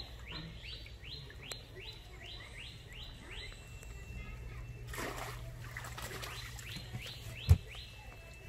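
A bird's rapid chirping, each chirp falling in pitch, about three a second, for the first few seconds and again near the end. Around the middle comes a rustle and splash of the cast net being handled at the water. About a second before the end there is a single loud knock.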